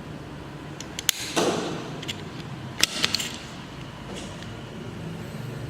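Handheld optical fiber cleaver cutting a stripped fiber: a string of sharp mechanical clicks and snaps from its clamp and blade, mostly between about one and three seconds in, over a low steady hum.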